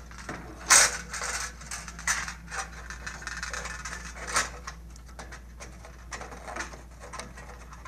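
Small clicks, taps and rattles of hands handling the fish wire and parts at the end of a Solaris barrier tower's frame, with one sharper click about three-quarters of a second in.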